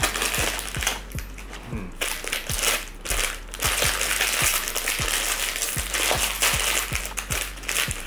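Crinkling and crackling of a snack packet: a cardboard cookie box is opened and the shiny plastic wrapper inside is handled and pulled open. Background music with a steady beat runs underneath.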